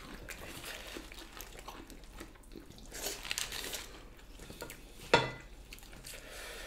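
Quiet eating by hand: soft clicks and rustles of food handled on plates, with chewing and mouth noises, and one sharper, louder mouth sound about five seconds in.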